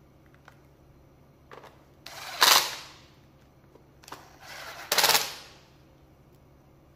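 Makita TD110D 12-volt cordless impact driver hammering, in two short bursts about two and a half seconds apart, backing out screws.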